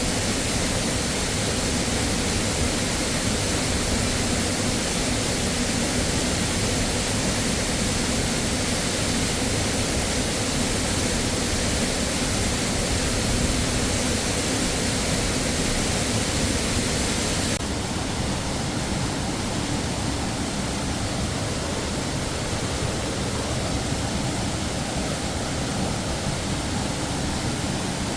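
Waterfall rushing in a steady, even noise; about two-thirds of the way through its hiss becomes slightly duller and quieter all at once.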